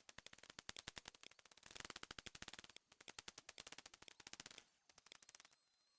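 Dolphin echolocation clicks picked up by a hydrophone underwater: rapid trains of sharp clicks, many a second, in several bursts that stop about five and a half seconds in, followed by a faint high whistle.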